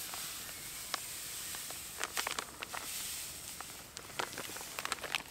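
Table salt pouring from a bag in a thin stream into a wooden bowl: a steady hiss with scattered light ticks.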